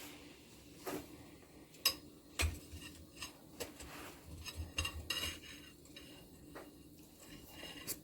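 Spoons and a whisk clinking and knocking against a mixing bowl while batter ingredients are added and stirred: a handful of scattered light knocks, with a quick cluster about halfway through.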